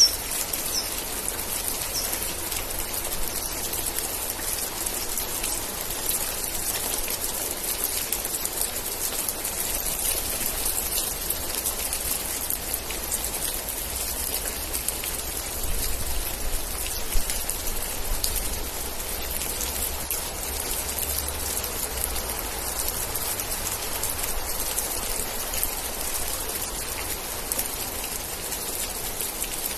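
Steady rain falling, with many separate drops striking close by over the general hiss. About halfway through, a low rumble swells and then fades back.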